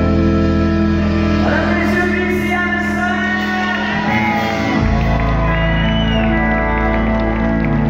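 Live country band playing: electric and acoustic guitars, steel guitar and drums on long held chords, with a voice shouting out over the music.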